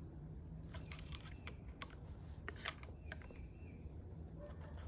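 Scattered light clicks and taps of a screwdriver and plastic trim as a retainer clip is pried out of a steering-wheel control panel, over a steady low hum.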